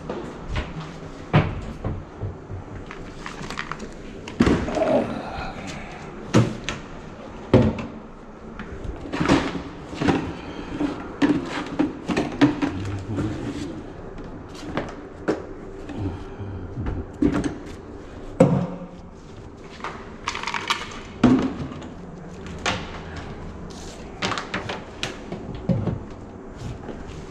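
Irregular clunks, knocks and bangs of hand tools and a tool bucket being set down and handled on a hard floor and counter.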